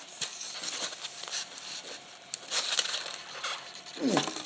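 Toy packaging being handled: scattered crinkles of plastic and cardboard with small sharp clicks and taps.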